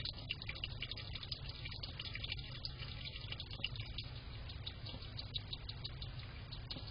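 European hedgehog lapping water from a bowl: quick, irregular small wet clicks and slurps over a steady low hum.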